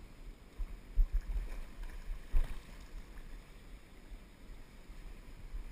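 Wind and river water rumbling against an action camera held just above the surface of a wading river, with two dull thumps about one and two and a half seconds in.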